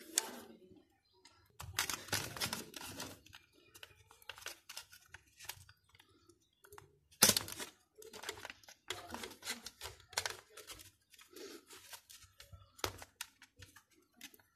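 Irregular small clicks, scrapes and rustles of hands working on a plastic juicer base, its power cord and a screwdriver while the cord clamp is being fastened, with one sharper knock about seven seconds in.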